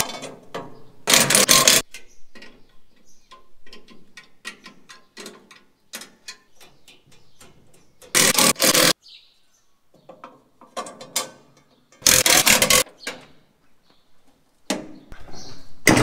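Ratchet spanner clicking in three short, loud bursts of rapid strokes, with lighter clicks and taps between, as loose drive chains on a combine harvester are tightened at their tensioners.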